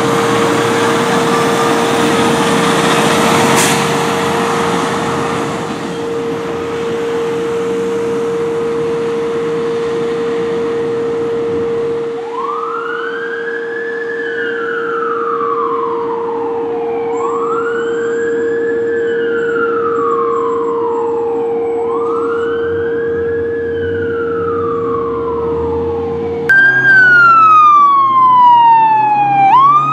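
Fire ladder trucks responding. For the first several seconds a truck's engine runs, with a steady tone underneath. From about twelve seconds in, an electronic siren wails, rising and falling slowly about every four seconds. Near the end a louder, closer siren sweeps down and back up.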